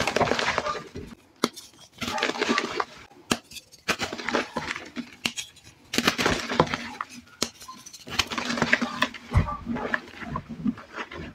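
Hands squeezing and crushing dry hydrophobic chalk powder and lumps, crunching and crackling in bursts about every two seconds.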